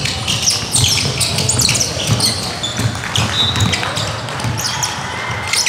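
Basketball bouncing on a hardwood court, a low thump about twice a second, with sneakers squeaking on the floor in short high squeals, echoing in a large sports hall.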